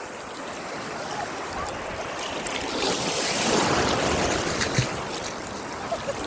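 Ocean surf rushing in around a swimmer: a wash of breaking-wave noise that swells about two and a half seconds in, peaks, then eases off.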